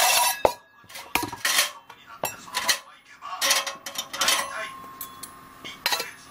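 Stainless wire tray and wire hook being handled on a portable gas heater's metal wire guard: a series of sharp metallic clinks and short rattles, with a last pair of clinks near the end.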